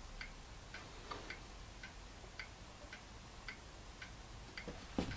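Faint, steady ticking of a mechanical clock, about two ticks a second, with a soft knock near the end.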